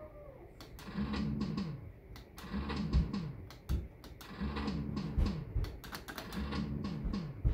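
Maygay Great Escape fruit machine in play: reels spinning and clicking as they stop, with a short low electronic sound effect from the machine repeating about five times.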